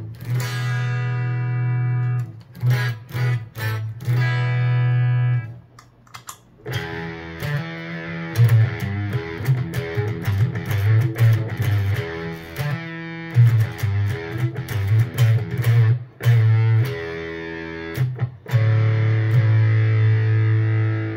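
Electric guitar through a NativeAudio Fry Bread fuzz pedal: sustained chords and notes, cleaner-sounding for the first several seconds, then thick and fuzzy from about seven seconds in, with short breaks between phrases.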